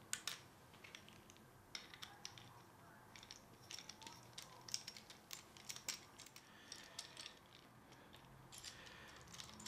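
Faint metallic clicks and scrapes of a Magic Arm being screwed onto the quarter-inch thread of a metal Super Clamp, irregular ticks coming in small quick clusters, busiest through the middle and again near the end.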